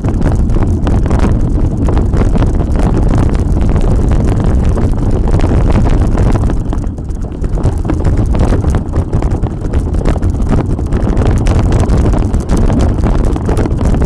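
Wind buffeting the microphone of a camera on a mountain bike riding fast along a bumpy dirt singletrack, with tyre rumble and rattling over the bumps. It eases briefly about seven seconds in.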